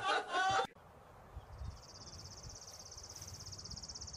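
A person's voice cut off short just under a second in. Then, from about two seconds in, a steady, rapid, high-pitched songbird trill.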